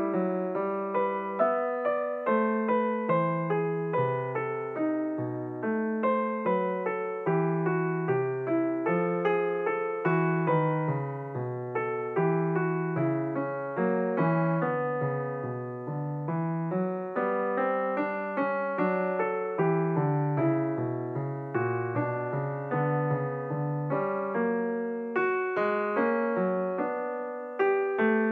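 Background piano music: a steady stream of struck notes, each fading away.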